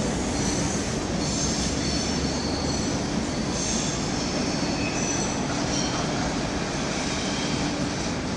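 Double-deck passenger train rolling slowly through the station, with a steady rumble of wheels on rail. Faint high-pitched wheel squeal comes and goes over it.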